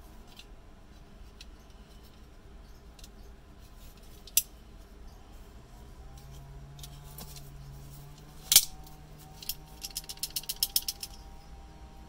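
Sharp metal clicks from an antique Rampuri leverlock switchblade being worked: a single click about a third of the way in, a loud snap about two-thirds through, then a quick run of about a dozen clicks, roughly ten a second.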